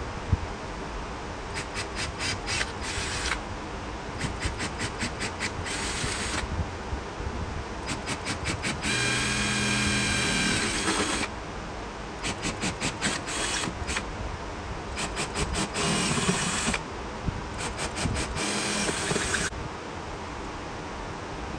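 Cordless drill boring holes through a thin aluminium panel, run in about six short, stuttering bursts of one to three seconds each, with a steady motor whine in the longest run near the middle.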